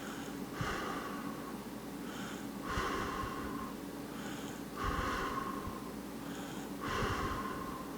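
Breath blown directly into a Sony Handycam camcorder's built-in microphones, which are covered by Micover windscreens. There are four breaths about two seconds apart, each a breathy rush. The covers let through just a little wind noise, a short low rumble as each breath starts.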